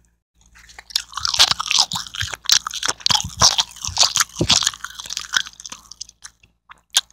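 Someone chewing a bite of homemade chicken tender close to the microphone: loud, wet crunching that starts about a second in and lasts about five seconds, then a couple of faint clicks near the end.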